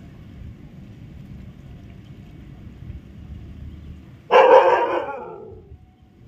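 A Rajapalayam, the white Indian sighthound, gives one loud bark about four seconds in, trailing off over about a second.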